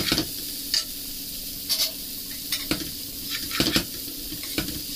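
Spaghetti and shrimp sizzling in a metal frying pan as they are tossed with metal tongs, the tongs knocking against the pan about once a second.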